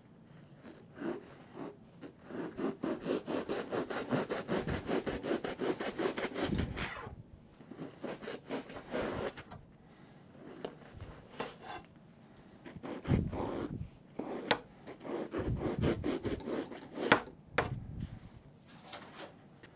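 A hand knife sawing through upholstery foam with fast back-and-forth strokes for several seconds, then shorter runs of strokes with pauses, as the foam is trimmed to fit a seat cover.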